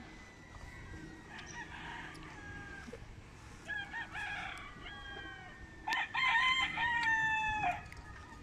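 Gamefowl roosters crowing one after another. The loudest crow comes about six seconds in and ends on a long held note.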